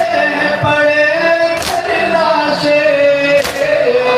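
Men chanting a nauha (Shia lament) through a microphone in long, drawn-out sung lines. Under the chant come loud unison chest-beating slaps (matam), three of them, about every two seconds.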